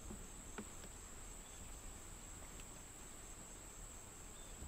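Faint steady high-pitched chirring of crickets or similar insects, over a faint low rumble of open-field background.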